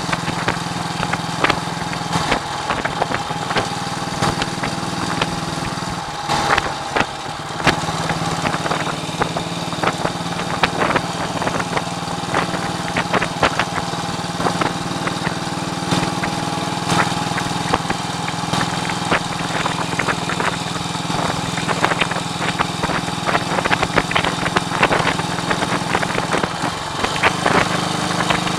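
1939 AJS Model 22 250 cc single-cylinder four-stroke motorcycle engine running steadily on the road, with wind buffeting the microphone throughout. The engine note drops briefly about six seconds in, then picks up again.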